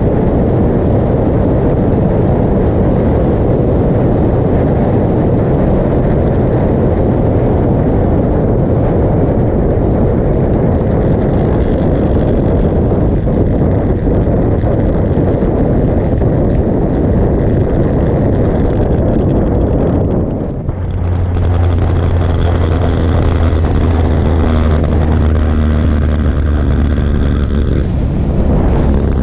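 Wind rushing over a motorcycle-mounted camera at highway speed, with the motorcycle's engine drone underneath. About two-thirds of the way in the wind roar drops off and a steady low engine hum comes through clearly.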